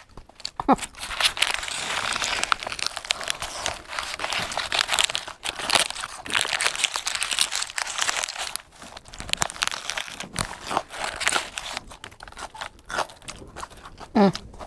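Paper food wrapper crinkling as it is handled, with crisp fried flour coating crunching as it is broken off and eaten.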